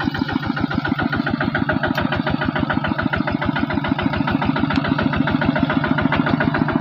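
Two-wheel walking tractor's engine running with a fast, even thumping beat, getting slightly louder toward the end.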